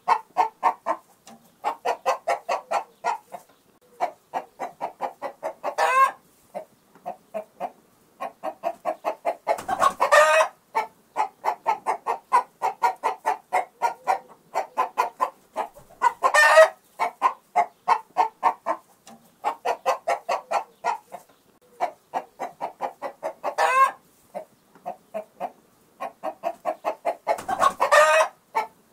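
Chickens clucking in long runs of rapid short clucks, broken by a louder rising squawk every few seconds.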